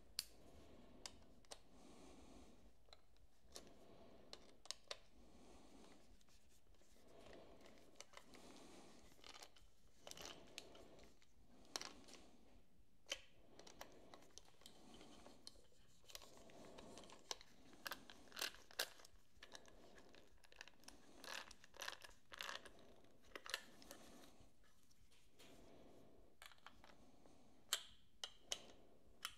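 Faint, scattered clicks and scratches of small metal parts being handled: a tiny nut being threaded onto a gauge's terminal stud with a small hand tool, over quiet room tone.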